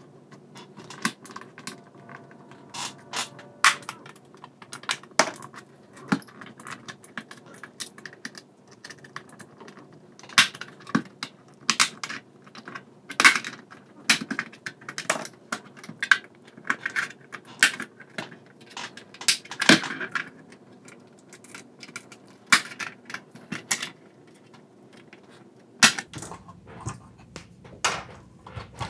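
Plastic pry tools working the trim bezel off a GM rear-view mirror housing: irregular sharp plastic clicks and snaps as the bezel's clips pop loose and the housing is handled.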